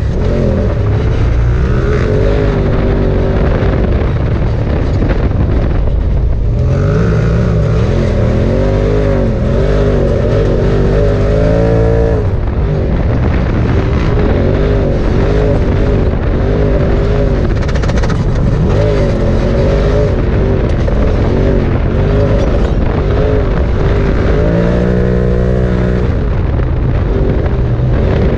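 Side-by-side UTV engine heard from inside the cab while driving a dirt trail, its pitch rising and falling as the throttle is worked, climbing sharply about twelve seconds in and again near the end. A steady low rumble runs underneath it.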